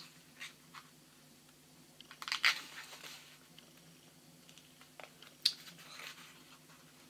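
Packaging of a tube of oil paint being worked and torn open by hand: a few short crinkles and cracks, the loudest about two and a half seconds in and again about five and a half seconds in.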